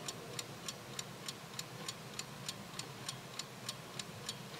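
Faint, even ticking, about three ticks a second, over a low steady hum.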